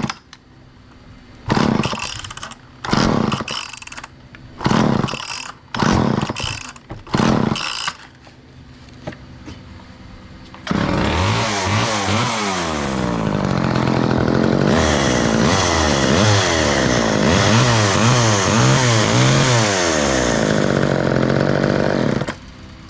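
Old chainsaw's two-stroke engine, freshly revived after years sitting unused: about six short bursts of firing in the first eight seconds, then running continuously for about twelve seconds with the throttle opened and closed over and over so the pitch climbs and drops, cutting off shortly before the end.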